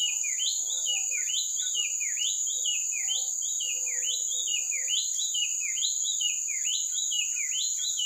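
White-chested babbler singing a non-stop string of short whistled phrases, about one a second, each starting high and sliding down in pitch. A steady high insect drone runs underneath.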